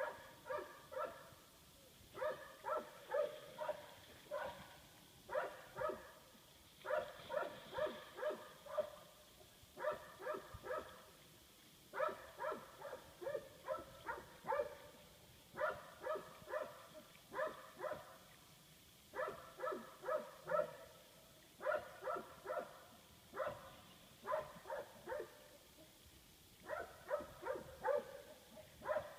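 A dog barking in quick runs of three to six short barks, one run every second or two, over and over.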